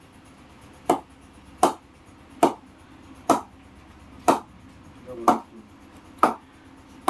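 Ping test on a new Kookaburra Bubble English willow cricket bat: a leather cricket ball tapped against the bat face, giving a sharp wooden knock roughly once a second, about eight times, to judge how the willow responds.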